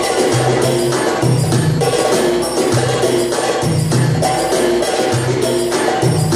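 Oriental-style dance music playing, with a steady beat of hand percussion and tambourine over a repeating bass line.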